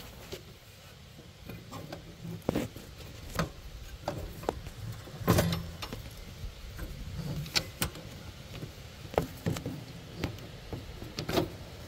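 Irregular knocks, taps and rattles as hands work a rubber drive belt around pulleys against a riding mower's steel frame and guards, with one louder clunk about five seconds in.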